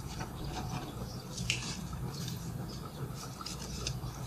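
A deck of Bicycle playing cards being shuffled and handled by hand: a run of quick papery flicks and rubs, with a sharper snap about one and a half seconds in. A steady low hum lies underneath.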